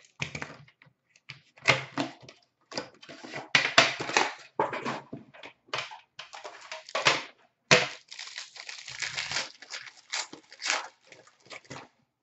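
Packaging of a 2016-17 Upper Deck Premier hockey card box being torn open: a run of irregular tearing and crinkling of plastic wrap and cardboard, with short pauses between the bursts.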